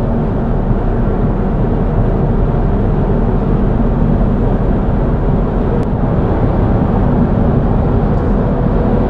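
Steady road noise heard from inside a car cruising at motorway speed: an even rumble of tyres, engine and wind, with a faint steady tone near the end.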